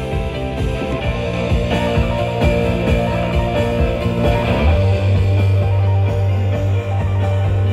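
Rock music with guitar. A deep, strong bass note comes in about two-thirds of the way through and holds.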